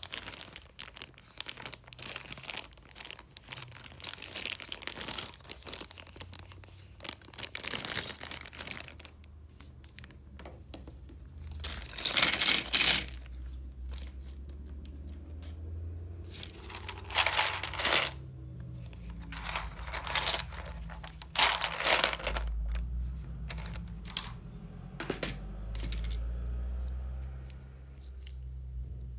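Chocolate wrappers being torn open and crinkled by hand: irregular rustling and tearing throughout, with several louder tears in the second half.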